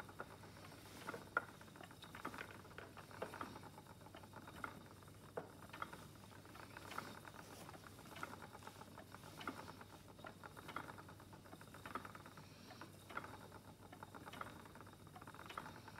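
Wooden spinning wheel turning under treadling while yarn is spun, giving faint, irregular light clicks and taps, roughly one or two a second.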